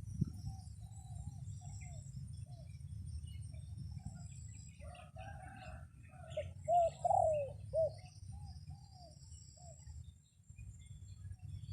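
Dove cooing: a run of short, arched coo notes, loudest and most rapid a little past the middle. A steady low rumble of wind on the microphone runs underneath.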